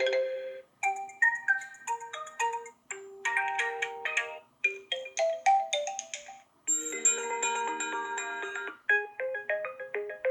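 Built-in alarm tones of an OPPO Reno6 5G phone playing one after another: short melodic chimes of bell- and marimba-like notes. Each tone breaks off after a second or a few seconds and the next starts, about four times.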